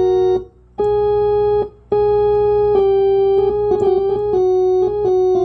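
Hammond A105 tonewheel organ playing held notes that stop twice briefly near the start, then a run of changing notes from about three seconds in, with a steady low hum underneath. The organ still needs repair: it sounds as if additional notes are being played, with an undertone the owner notices.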